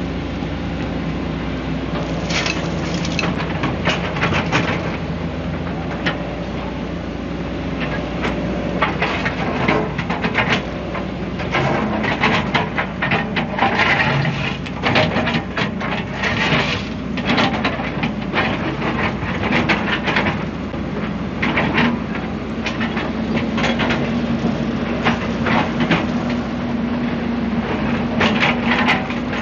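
Hyundai excavator's diesel engine running under load with hydraulics working, while the bucket digs and scrapes through soil with repeated irregular crunches and scrapes.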